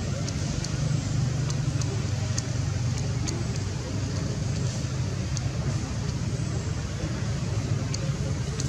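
Steady low outdoor rumble, with faint high ticks scattered through it.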